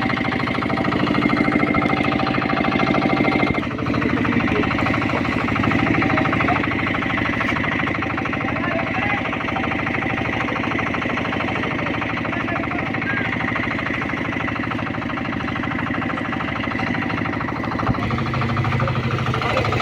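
A fishing boat's small engine running steadily with a fast, even firing beat; its note shifts about four seconds in and again near the end.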